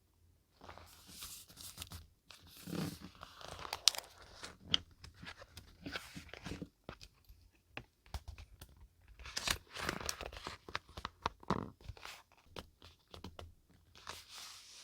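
Paper being handled for a scrapbook journal: irregular rustling and crinkling with small sharp clicks, in clusters with short pauses.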